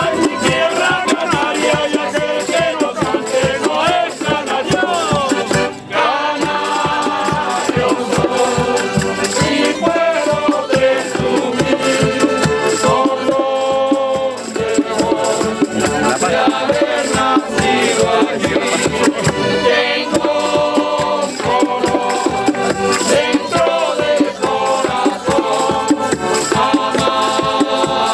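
Canarian parranda folk group playing and singing together: strummed laúd and guitars, accordion, flute, a drum, tambourines and hand drums keeping a steady, lively rhythm under several voices singing in unison.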